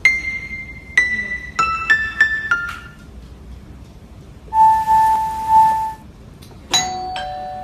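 Electronic keyboard played with piano-like notes: about six single notes struck one after another in the first three seconds, each dying away. Midway a single steady high tone is held for about a second and a half with a hiss over it, and a couple more lower notes sound near the end.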